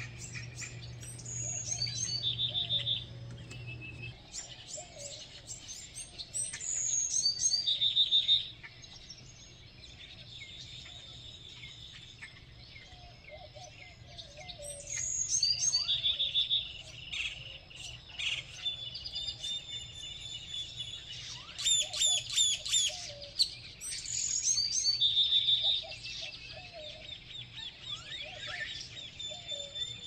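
Several songbirds singing together in a morning chorus: overlapping chirps, whistles and trills, with one short trilled phrase coming back several times.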